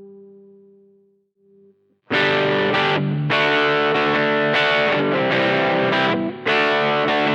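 Electric guitar through a prototype FET overdrive pedal with asymmetric diode clipping, into a small valve amp. A held note rings out and fades away, then about two seconds in a loud, distorted riff of chords starts, with a couple of brief breaks.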